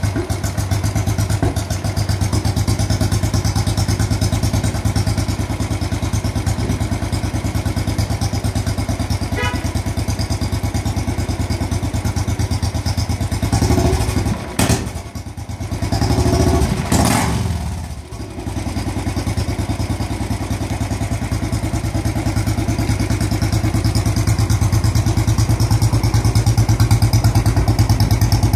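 Royal Enfield Classic's single-cylinder engine idling through a new muffler, a steady rapid beat of exhaust pulses. About halfway through, the sound dips and swells for a few seconds before settling back to the even idle.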